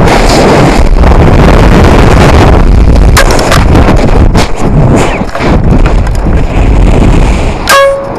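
Heavy wind buffeting the onboard camera's microphone on a descending rocket sustainer hanging under its parachute, with a few knocks. A brief beep-like tone sounds near the end.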